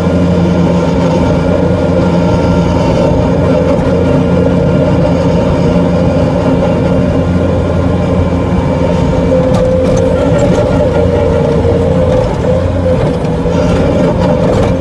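Bobcat skid-steer loader's diesel engine running steadily at one even pitch, heard from inside the operator's cab.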